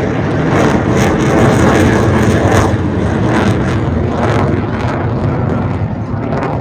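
Military jet aircraft flying over, a loud steady rush of engine noise.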